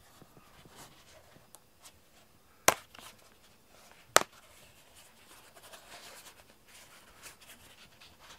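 Two sharp clicks about a second and a half apart, the snap fasteners of a cat's soft Elizabethan collar being pulled open, with faint rustling of hands handling the collar in between.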